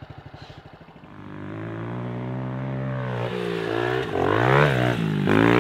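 Mini dirt bike engine running, growing louder and rising slowly in pitch from about a second in, then revving up and down twice near the end as the rider takes a jump.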